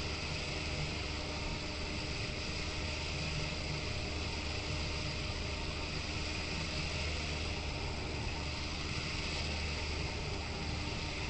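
Fishing boat's motor running steadily with an even hiss, unchanging throughout.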